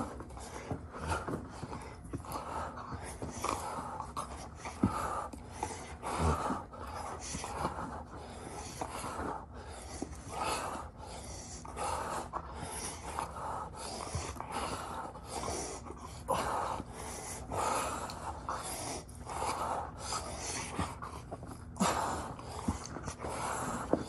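A dog breathing noisily in repeated snorting, panting breaths, roughly one a second, over a steady low hum.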